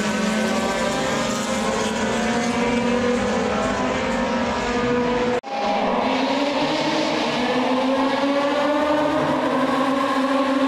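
A pack of open-wheel single-seater racing cars with several engines running at once, their pitches rising together as the field accelerates along the straight. The sound drops out for an instant about halfway through.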